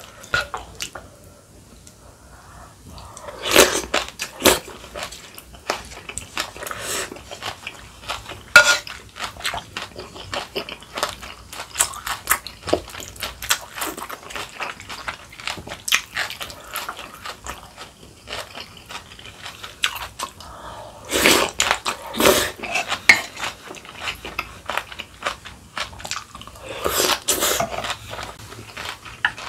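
A spoon stirring soup in an earthenware pot, scraping and clicking against the pot's sides with the broth sloshing, as seasoning is mixed into sundaeguk. A few louder, noisier bursts break in, about three seconds in, past twenty seconds in and near the end.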